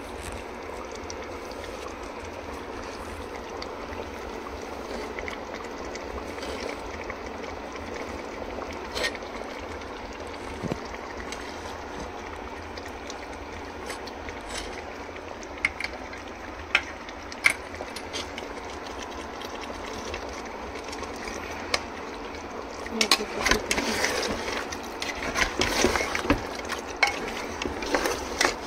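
Onions cooking in water in a pot on the stove: a steady hiss with a few scattered clicks. About 23 seconds in, a metal spoon starts stirring the pot, clattering and scraping against its sides.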